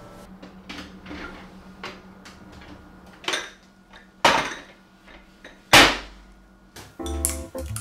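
Ceramic baking dishes and a metal baking tray knocking and clunking as they are handled and set down on a stainless steel counter: a few sharp knocks, the loudest about four and six seconds in. Music starts near the end.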